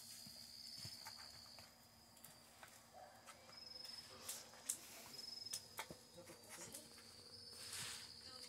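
Faint, steady high cricket trill that breaks off about two seconds in and resumes on and off later, with scattered soft taps and scuffs from two puppies play-fighting on a blanket over cardboard.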